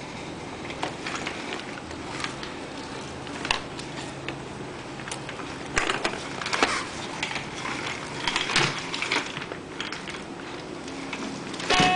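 Baby walker rattling and knocking as it is pushed along, with irregular clicks and clacks over a steady rolling rumble and a sharper knock near the end.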